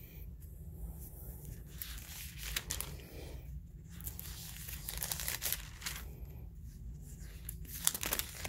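Thin Bible pages being turned over one after another, a string of papery rustles, swishes and crinkles.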